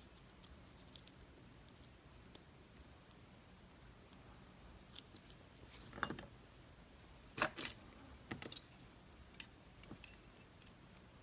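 Scattered small metallic clicks and tinks of pins being worked out of a disassembled DOM RS8 lock cylinder, with a cluster of louder clicks about six to eight and a half seconds in.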